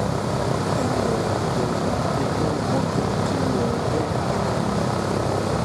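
Piston-engined propeller warbird flying overhead, its engine and propeller giving a steady drone.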